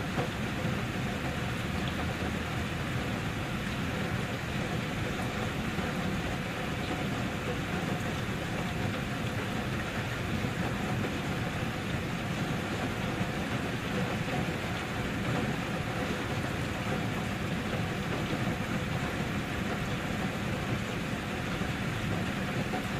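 Steady rain falling, an even unbroken hiss with no distinct drops or thunder standing out.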